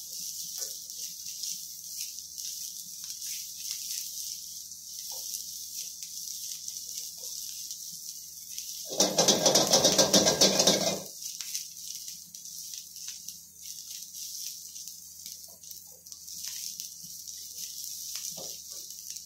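Shredded cabbage and carrot sizzling with a steady hiss in a hot wok over a gas burner while a spatula tosses them, with faint scrapes and ticks. About nine seconds in, a loud burst lasts about two seconds, then the steady hiss returns.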